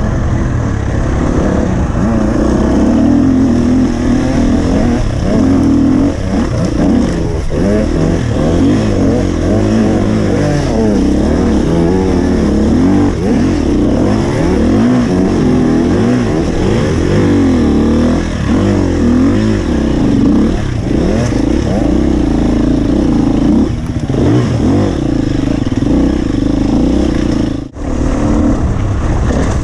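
Husqvarna FE 250 four-stroke single-cylinder enduro motorcycle being ridden, its engine revving up and down constantly with the throttle. The sound drops out sharply for a moment near the end.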